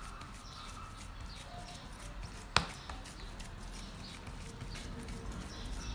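Bare hands pressing and smoothing raw ground-meat kebab mixture across a round metal baking tray, a quiet soft patting and smearing, with one sharp tap about two and a half seconds in.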